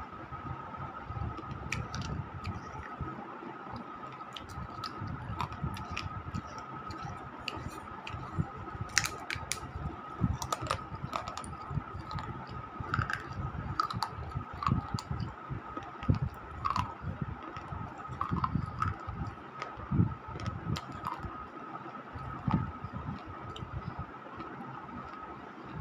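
Close-up chewing and mouth sounds: many short, sharp clicks and soft low thuds as food is bitten and chewed. A faint steady high whine runs underneath.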